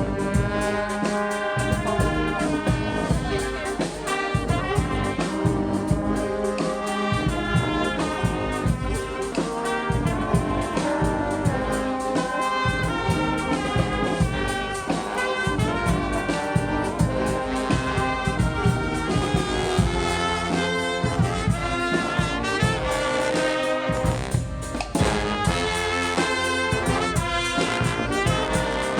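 Street brass band playing live: trumpets and trombones over drums with a steady beat.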